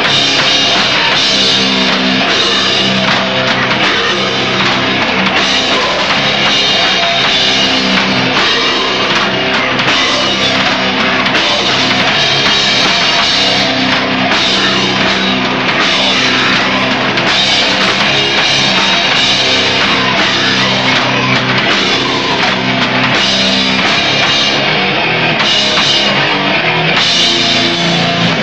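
Death metal band playing loud and continuously, with a drum kit and distorted electric guitars.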